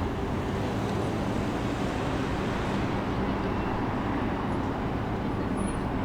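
Steady ambient din of a busy transit station: a continuous low vehicle hum and general rumble, with no distinct events standing out.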